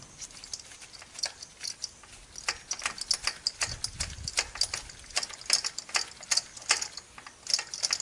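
Ratchet wrench clicking in quick, irregular runs as it works a spark plug out of its well in the cylinder head.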